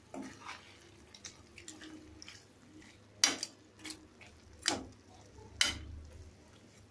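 A steel spoon stirring thick chicken curry in a steel kadai, with a few sharp clinks of spoon against the pan, the loudest about three seconds in.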